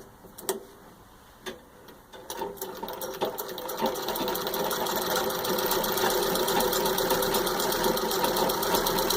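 1916 Singer 127 treadle sewing machine stitching through six layers of denim. A few separate clicks come first. About two seconds in it starts and picks up speed into a fast, steady run of rapid stitches at full speed.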